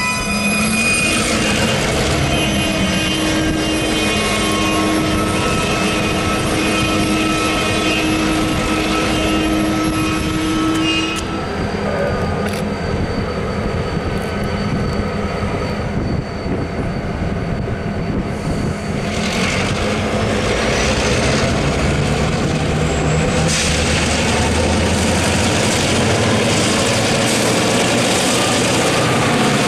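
Freight train with diesel locomotives moving slowly along the track: a set of steady high whining tones cuts off about eleven seconds in, and the low engine rumble and rolling noise of the train then grow louder in the second half.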